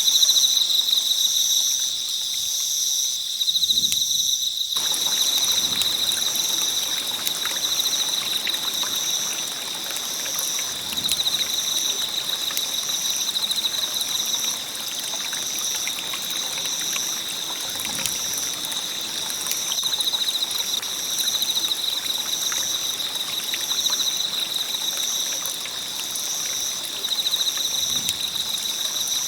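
Wood campfire crackling and hissing with scattered small pops; the crackle comes in abruptly about five seconds in. Over it, insects chirr steadily in two high pitches, the higher one pulsing about once a second.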